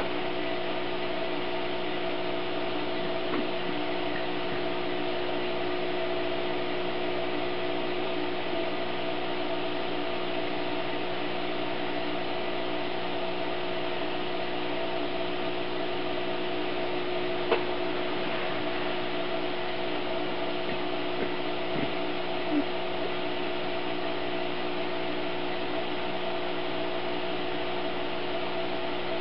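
Aquarium equipment running with a steady mechanical hum, with a few faint clicks.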